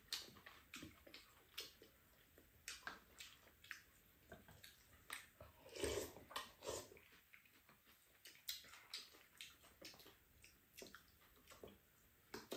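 Faint eating sounds: wooden spoons tapping and scraping in ceramic bowls, with slurping and chewing of curry, heard as scattered short clicks and a couple of louder mouth sounds about six seconds in.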